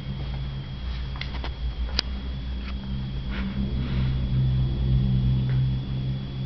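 Small dog growling low and continuously while tugging and nosing at a plush toy, the growl swelling in the second half. A few sharp clicks in the first two seconds.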